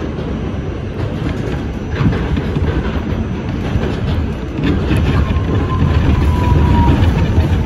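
R68 subway car running on elevated track: a steady rumble of wheels on rails, with a few sharp clicks over the rail joints. From about five seconds in, a faint tone falls slowly in pitch.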